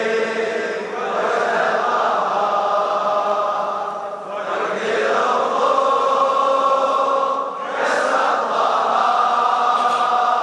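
A large crowd of men chanting a Shia mourning lament (latmiya) together in unison. They sing in long held phrases of about three seconds each, with short breaks between them.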